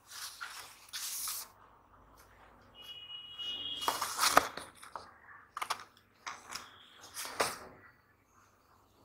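Tailor's chalk scraping along a folded strip of stiff buckram, with crackling and rustling as the buckram is handled. It comes in several scratchy strokes, with a brief high squeak about three seconds in.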